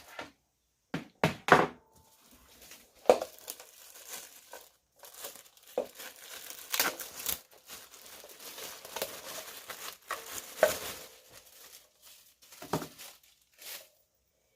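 Packaging being crinkled and rustled as it is handled and pulled open during an unboxing: irregular rustling with a few sharper, louder crackles.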